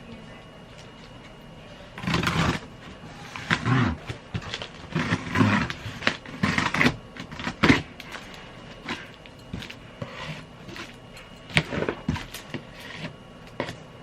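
Cardboard box and packaging being handled and opened: irregular bursts of scraping and rustling for several seconds, then scattered sharp clicks and taps.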